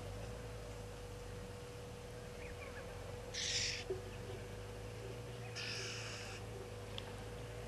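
Two short, raspy, hissing animal calls, the first about three seconds in and a longer one about two seconds later, over a steady faint hum.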